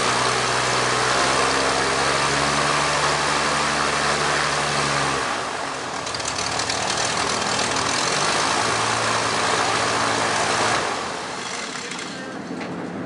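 Skybolt biplane's engine running with its propeller turning, its steady note changing about five seconds in. Near the end the engine is shut off and the propeller winds down.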